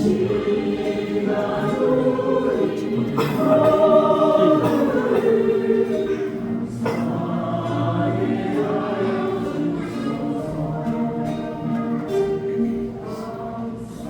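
A group of voices singing a Christian gospel song together, with music accompaniment.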